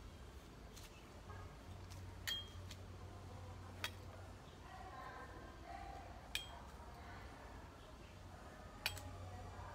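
Four sharp metallic clinks from a large knife blade as plant stems are cut with it, spaced a second and a half to two and a half seconds apart; two of them ring briefly.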